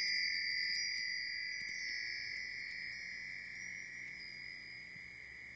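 Shimmering chime sound effect of a logo sting: a sustained high ring with twinkling notes sparkling above it, fading away slowly and steadily.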